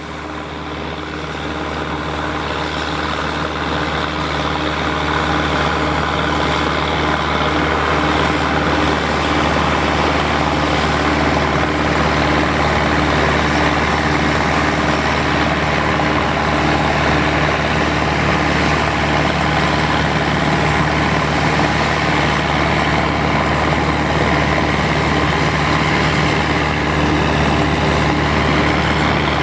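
John Deere 3020 tractor engine running steadily under load as it powers a pull-type John Deere 9501 combine through the PTO, growing louder over the first few seconds.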